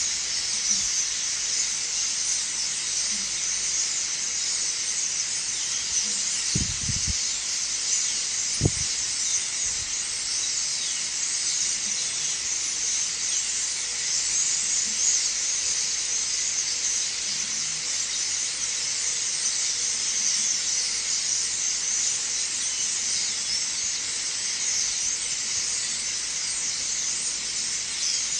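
A dense, unbroken chorus of many birds chirping and squealing at high pitch: a flock's morning racket. A few dull low thumps come about seven and nine seconds in.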